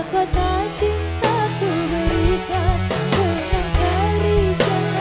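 A woman sings a campursari song, her melody wavering and ornamented, over a live band of gamelan, kendang, drum kit and bass with a steady beat.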